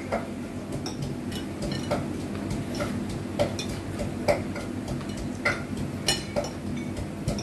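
Short sharp clicks and clinks, irregular, about one or two a second, over a steady low hum.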